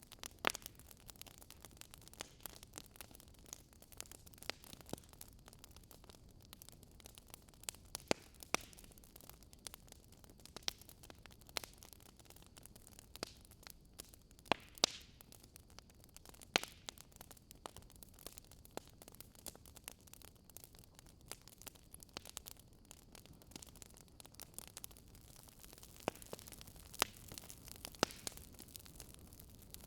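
Wood fire crackling in a fireplace: irregular sharp pops and snaps over a soft hiss, a few louder snaps scattered through.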